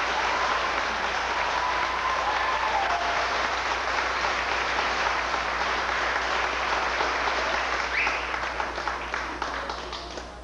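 Audience applauding for an award winner, steady and then dying away near the end.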